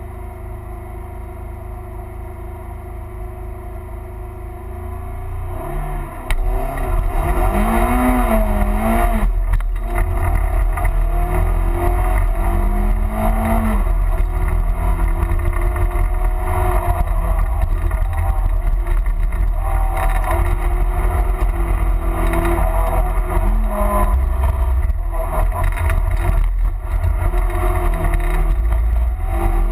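Renault Clio Williams' 2.0-litre 16-valve four-cylinder engine heard from inside the cabin. It runs steadily for about six seconds, then comes on full throttle as the car launches, and revs hard through the gears, its pitch climbing and dropping back at each shift.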